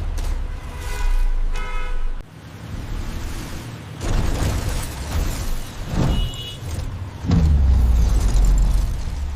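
Deep vehicle engine rumble with two short horn honks about a second in. The rumble drops away briefly and comes back, with heavy thuds later and the loudest rumble near the end.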